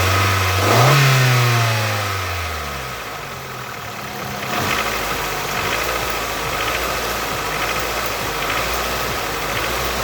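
Nissan QG18DE 1.8-litre four-cylinder engine revved once, its pitch rising about a second in and falling back over the next two seconds, then running steadily at idle. This is the engine whose knock the owner is trying to identify.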